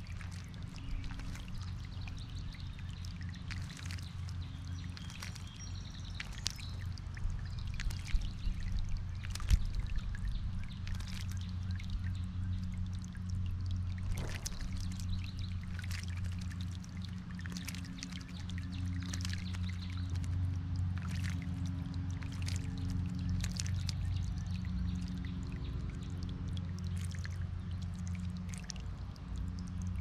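American robin bathing in a bird-bath fountain: repeated splashes of water as it dips and flaps, over the steady trickle of the small fountain jet and a low steady hum. The splashes are loudest about eight to ten seconds in.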